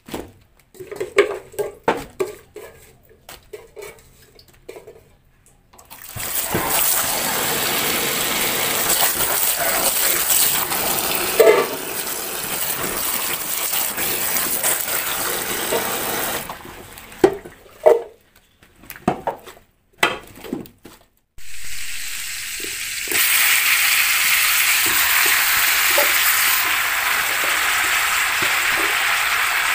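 Kitchen tap running onto leafy greens in a stainless steel sink as they are rinsed by hand, with rustling and knocks of the wet leaves being handled. The water comes in long steady stretches, starting about six seconds in, pausing briefly past the middle, then running again.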